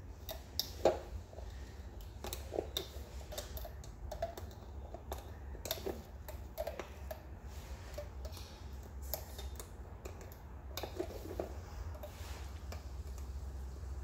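Irregular light clicks and taps of a metal hook and rubber bands against the plastic pegs of a rubber-band loom, as bands are pushed back and looped over peg by peg, over a low steady hum.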